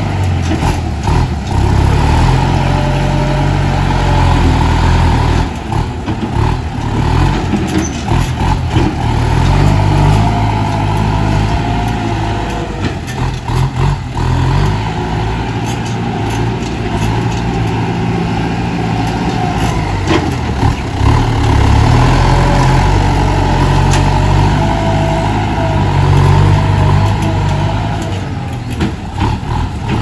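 Farm tractor's diesel engine running under load as it pulls a disc plough through dry soil, a steady drone that swells and eases as the tractor works back and forth.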